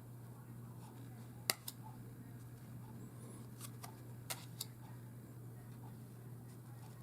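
Tarot cards being handled and laid down: a few sharp, light clicks in three quick pairs, over a steady low hum.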